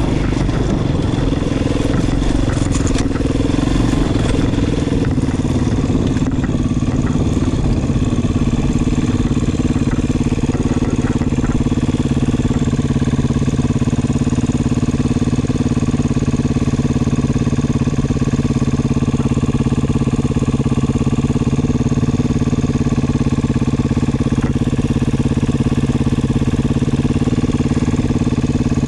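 Beta 500 RR dirt bike's single-cylinder four-stroke engine running at a steady, unchanging speed, with some light clatter in the first few seconds.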